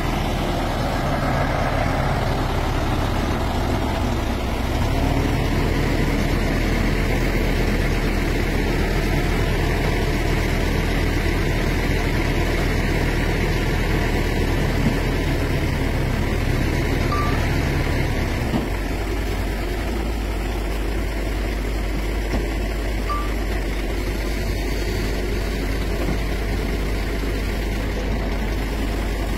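Heavy truck engine idling steadily with a low hum that changes in tone about two-thirds of the way through.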